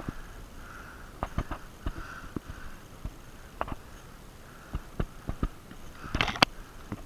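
Heavy, rhythmic breathing through a stuffed-up nose, with irregular footsteps and gear rustling, and a louder crunching rustle about six seconds in.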